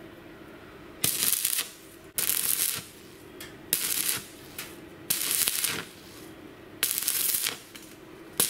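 Stick (arc) welding: short bursts of crackling arc as a steel hinge is tack-welded in place with a stick electrode. Five bursts of about half a second each, with pauses of about a second between them, and another starting at the end.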